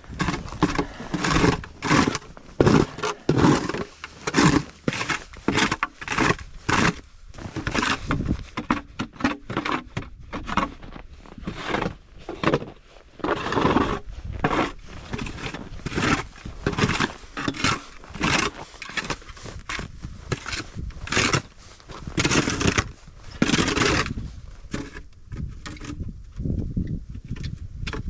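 Snow shovel digging and scraping snow in quick repeated strokes, about two a second.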